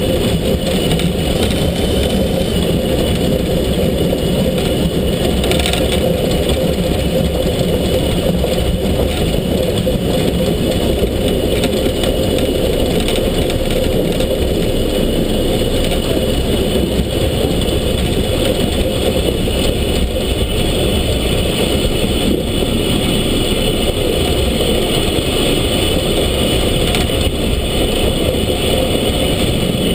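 SZ class 33 2-10-0 steam locomotive running along the line: a loud, steady rumble from the engine and wheels, with wind on the microphone.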